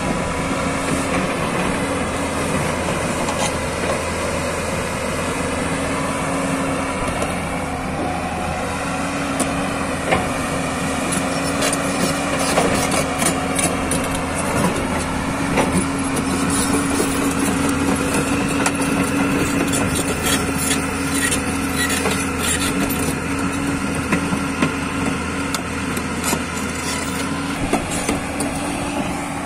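JCB 205 tracked excavator's diesel engine running steadily under hydraulic load as the boom and bucket move, with scattered short metallic clanks and ticks through the second half.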